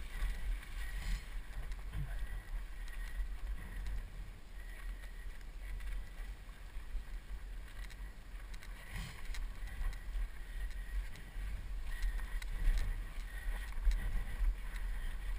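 Wind buffeting a helmet-mounted camera's microphone as a mountain bike is ridden over a rough, stony trail, with occasional knocks and rattles from the bike hitting stones.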